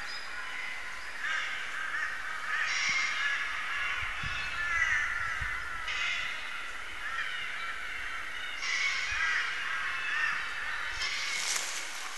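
A dense chorus of many birds calling over one another, in layered stretches that switch in abruptly every few seconds.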